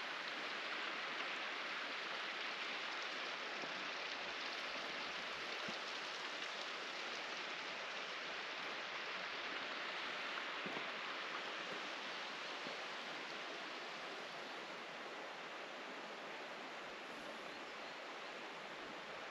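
Steady hiss of rushing water, like a mountain stream, easing a little in the second half.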